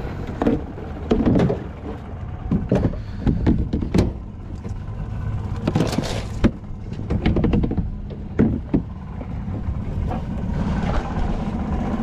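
Boat's outboard motor idling with a steady low hum, under a string of sharp knocks and clunks from handling on board.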